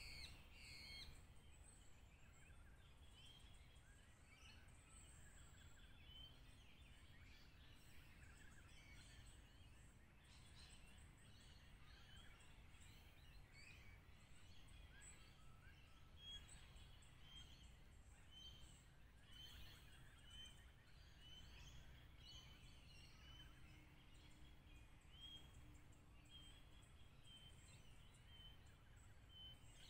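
Near silence with faint birdsong: short bird chirps repeating every second or two, over a low background rumble.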